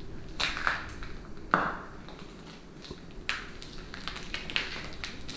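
Footsteps crunching over peeling paint flakes on a floor, an irregular series of crisp crunches, the loudest about one and a half seconds in.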